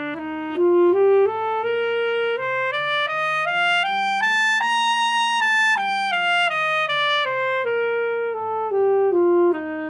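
Alto saxophone playing a G scale over two octaves, stepping up note by note into the altissimo register, with the top G held longest about halfway through, then stepping back down toward the low G. The notes are slurred one into the next.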